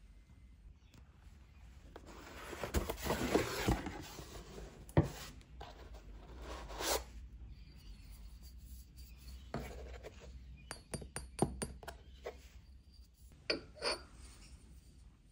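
Machine parts and packaging being handled by hand during assembly: rubbing and rustling, a sharp click about five seconds in, a quick run of small ticks a little past the middle, and two knocks near the end.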